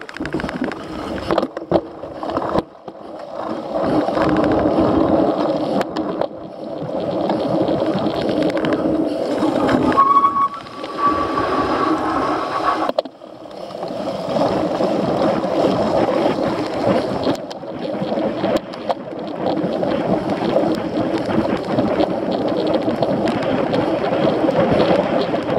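A cyclocross bike ridden at race pace over a rough course: continuous rolling tyre noise and rattling from the bike, with many small knocks. A thin steady tone sounds for about three seconds near the middle.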